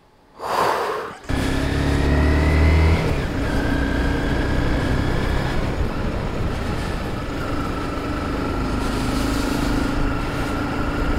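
Sport motorcycle under way: the engine running with wind rush over the microphone, cutting in abruptly about a second in. The engine note climbs over the first couple of seconds, then holds fairly steady.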